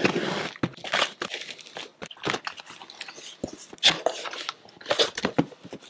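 Cardboard shipping box being opened by hand: packing tape tearing and the cardboard flaps crunching and scraping in irregular bursts.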